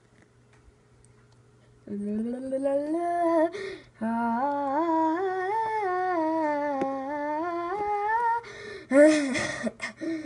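A person humming a wandering tune. It starts about two seconds in, pauses briefly, and stops near the end.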